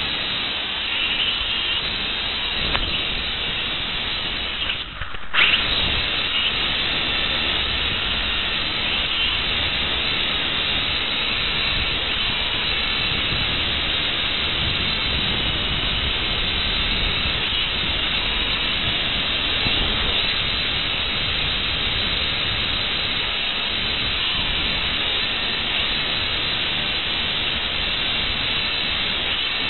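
Small FPV quadcopter drone's motors and propellers running, picked up by the onboard camera's microphone as a steady hiss. About five seconds in the sound drops out briefly and comes back with a sharp click.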